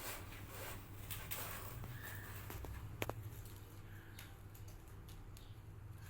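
Kittens moving about: light pattering and rustling with scattered small clicks, one sharper click about three seconds in, over a steady low hum.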